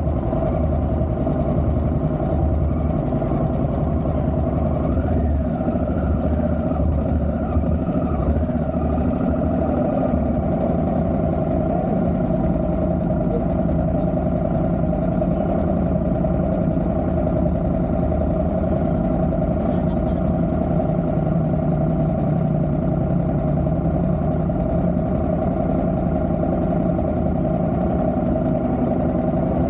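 Motorcycle being ridden at a steady pace: engine and road noise as one steady, unbroken drone.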